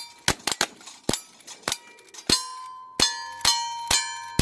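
Rapid string of rifle shots, lever-action rifles firing about one shot every half second, with steel targets ringing after the hits, the ringing building up over the second half.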